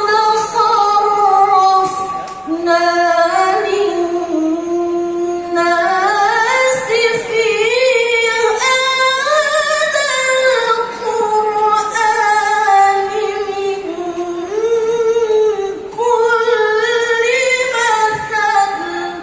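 A woman reciting the Qur'an in melodic tilawah style. She sings long held notes with wavering ornaments and takes short breaths between phrases.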